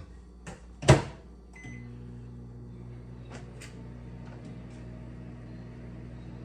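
A microwave oven door shuts with a loud clack about a second in. A short button beep follows, then the microwave starts running with a steady low hum.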